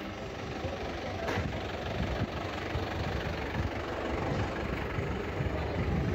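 Busy street ambience with a continuous low rumble of vehicle engines.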